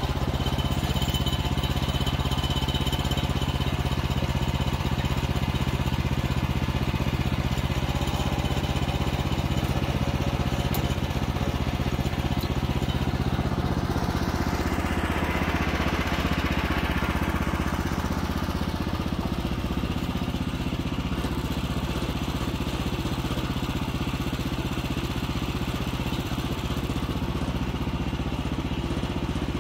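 Woodland Mills HM126 bandsaw mill with its 14 hp gas engine running steadily as the band blade cuts along a Douglas fir cant. The sound swells about halfway through as the sawhead is pushed past close by, then fades again.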